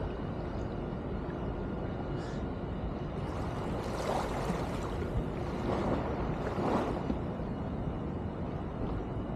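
Steady wind and water noise in shallow sea water, with two or three louder splashing bursts about four to seven seconds in as a man wades through the water.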